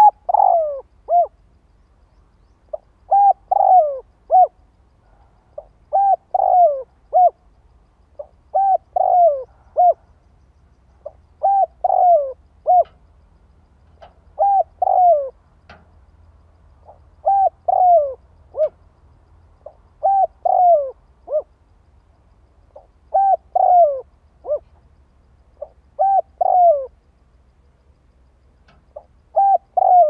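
Spotted dove cooing: a short phrase of about three notes, the middle one sliding down in pitch, repeated about every three seconds, around ten times.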